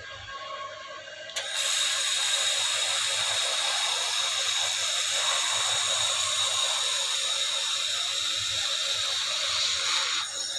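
2000 W Raycus fiber laser welder making a weld: a steady crackling hiss with a thin high whine. It starts suddenly about a second and a half in and stops shortly before the end.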